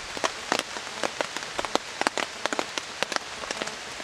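Rain falling on a tarp shelter overhead: a steady hiss with many sharp, irregular drop hits.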